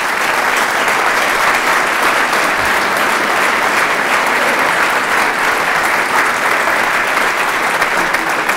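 Audience applauding, a steady roomful of clapping hands that begins to fade right at the end.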